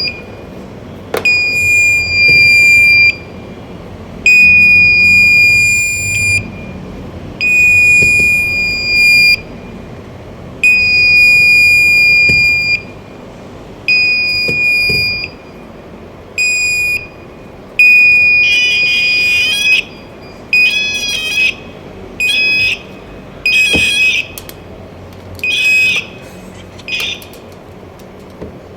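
Garrett hand-held metal detector sounding its alarm: a series of loud, high, steady tones, each about one to two seconds long with short gaps between. In the latter part the tones become shorter and waver in pitch.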